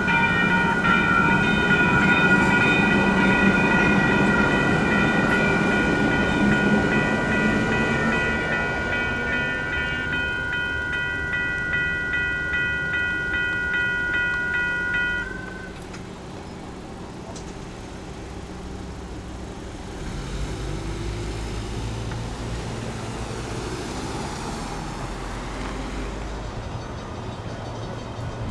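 Railroad grade-crossing warning bell ringing steadily at about two strokes a second over the fading rumble of a passing train; the bell cuts off suddenly a little past halfway as the crossing signal shuts off. A low rumble swells again near the end.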